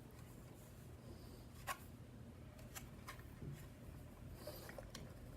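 Faint handling sounds of a plastic smoke alarm being turned over in the hands: a few light, sharp clicks and some rubbing, the loudest click a little under two seconds in, over a low steady room hum.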